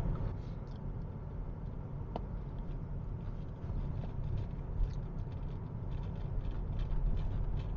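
Steady low rumble of a car's engine and tyres heard from inside the cabin while driving, with a few faint small clicks.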